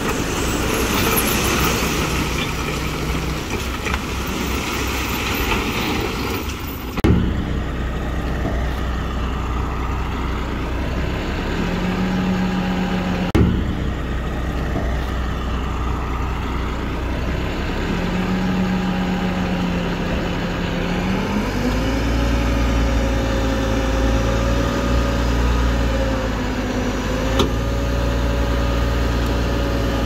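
Diesel engine of heavy earthmoving machinery running steadily, its pitch shifting a couple of times and then climbing to a higher, steady speed about two-thirds of the way through. A rushing noise fills the first seven seconds and cuts off suddenly with a knock, and a few more sharp knocks come later.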